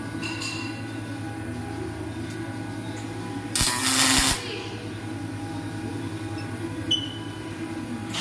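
Robotic MIG welder striking an arc for a short weld: a loud burst of crackling hiss lasting under a second, about halfway through, over a steady low hum.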